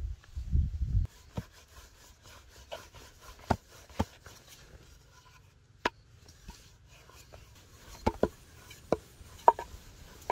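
Rolling pin rolling small balls of dough out into thin momo wrappers on a round rolling board: a low rubbing rumble over the first second, then scattered light knocks and clicks of the pin against the board.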